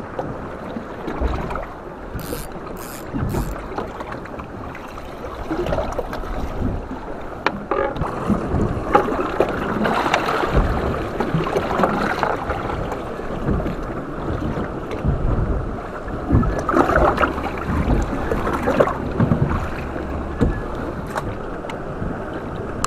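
Wind buffeting the microphone and water sloshing against a small boat, with three sharp clicks about two to three seconds in.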